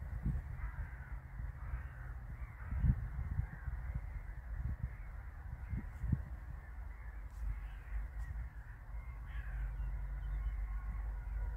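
Wind buffeting the microphone in uneven gusts, with birds calling faintly now and then.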